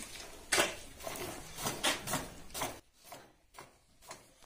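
Cow being milked by hand: jets of milk squirting into a plastic bucket partly full of milk, a quick uneven run of spurts about two or three a second, growing fainter after about three seconds.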